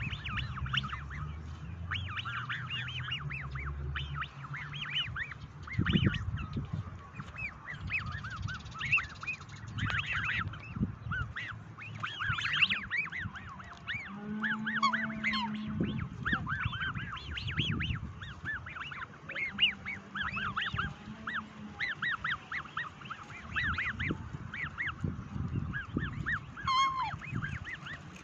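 Juvenile black swans giving a steady run of short, high whistling peeps that rise and fall in pitch, several birds calling over one another, with soft low thuds between the calls.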